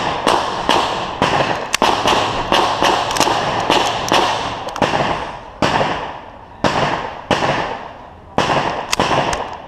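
Pistol shots fired in a fast string, about three a second for the first five seconds, then slowing to single shots about a second apart, each with a short ringing echo.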